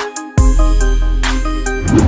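Electronic dance music: a plucked synth melody, joined about a third of a second in by a heavy, sustained bass, with a rising noise sweep near the end.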